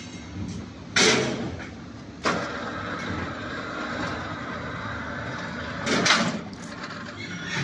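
QT4-18 hydraulic concrete hollow block machine running through its cycle: steady machine noise broken by a sudden loud bang about a second in, another a second later after which the noise stays louder, and a loud surge near the end.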